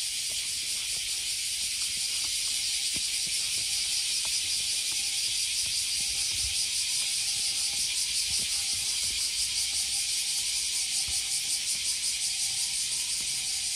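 Chorus of cicadas buzzing, a dense high-pitched drone that pulses quickly and evenly.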